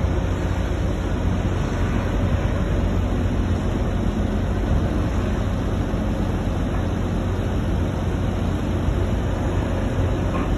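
Steady low mechanical rumble of running machinery, unchanging, with no distinct knocks or clatter of logs.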